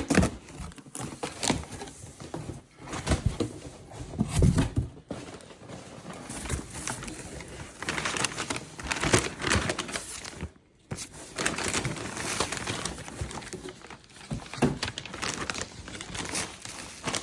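Cardboard box being opened and packaging paper rustled and crinkled by hand, with scattered tearing and the odd thud as contents are handled.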